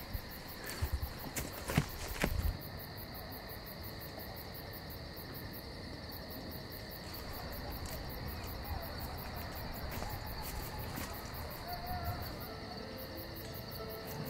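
A chorus of crickets chirping in a fast, even pulse, with a few soft thumps in the first couple of seconds. Faint music notes come in near the end.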